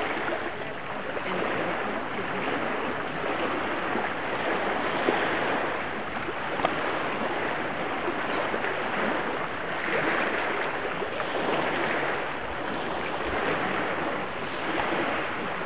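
Steady rushing outdoor noise of lake water and breeze, with no clear speech over it.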